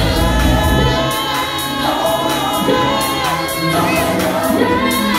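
Live gospel-tinged soulful house music: a male vocalist sings over a DJ-played track with choir-like backing vocals. The heavy bass drops out about a second in.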